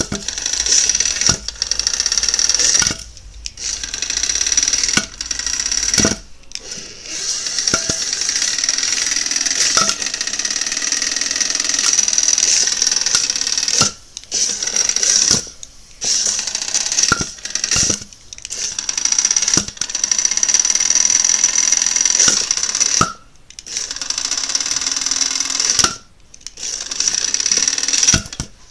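Hexbug BattleBots Tombstone toy's small electric motor spinning its 3D-printed asymmetric blade, a steady high whine that stops and starts again several times. Sharp knocks come in between as the blade strikes a styrofoam block and the arena.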